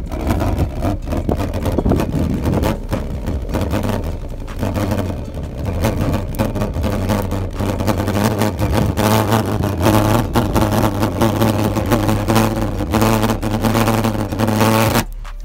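Homemade valveless pulse jet engine, a 5-foot pipe, running with a loud rumble. After about five seconds it settles into a steady low drone, and near the end it stops suddenly.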